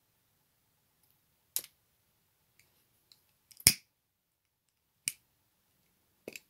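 Six separate sharp clicks, the loudest about three and a half seconds in: scissors snipping the spare thread ends and a hand lighter being clicked to burn them off.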